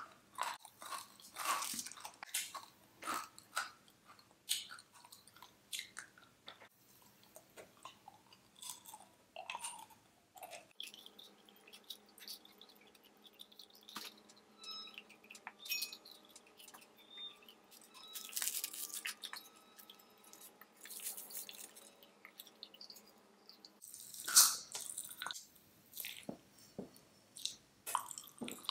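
Close-miked ASMR eating sounds of a person chewing and crunching sweets, with irregular crackly crunches and mouth clicks. There are louder spells of crunching about two-thirds of the way through and again near the end.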